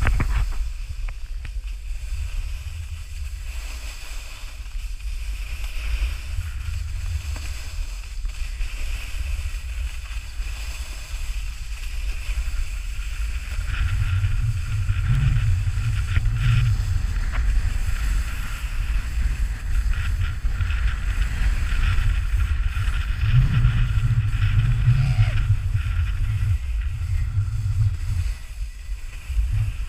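Wind rumbling on an action camera's microphone during a snowboard run downhill, with the board's edge hissing and scraping over groomed snow. Both get louder from about halfway through.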